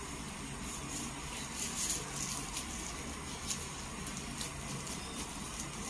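Kitchen knife slicing through fried pork belly and tapping on a wooden chopping block: scattered faint short clicks over a low steady hum.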